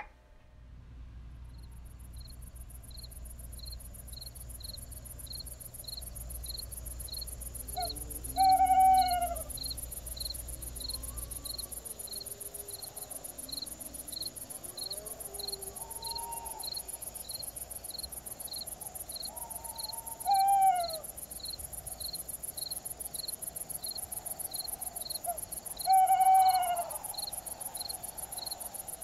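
Spooky night ambience: an owl hooting three times over steady, rhythmic cricket chirping and a continuous high insect trill.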